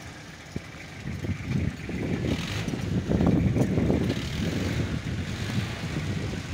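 Roadside traffic: a motor vehicle going by on the road, a rough low rumble that swells about two seconds in, peaks around three seconds and then eases.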